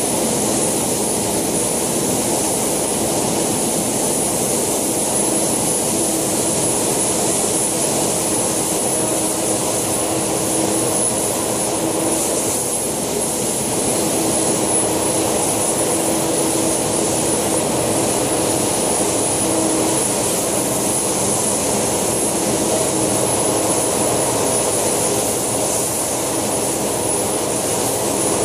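JetCat PHT2 model turboshaft turbine running steadily in a scale Alouette II RC helicopter: a continuous rushing noise with a thin, very high whine that wavers slightly.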